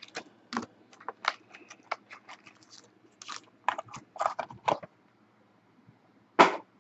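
Cardboard hobby box of Panini Preferred trading cards being opened and handled: a run of short clicks, taps and scrapes for about five seconds. After a pause, one loud thump near the end.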